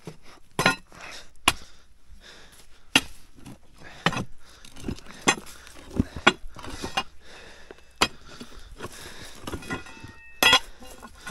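Irregular sharp knocks and clinks of stone with scuffing and scraping, as someone clambers up over rocks.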